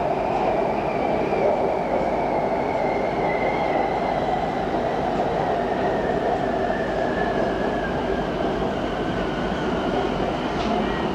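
Bangkok BTS SkyTrain carriage in motion, heard from inside: a steady running rumble of the train, with a thin electric motor whine that slowly falls in pitch.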